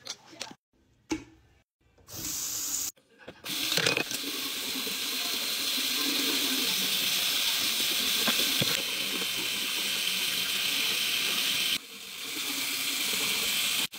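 Tap water running steadily into a bathroom sink. It starts about three to four seconds in, after a near-silent opening, and dips briefly near the end.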